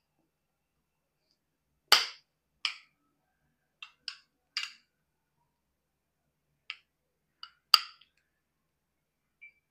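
A metal spoon clicking and clinking against a ceramic bowl while scooping yoghurt: about eight short, sharp knocks at uneven intervals, the loudest about two seconds in and another near the end.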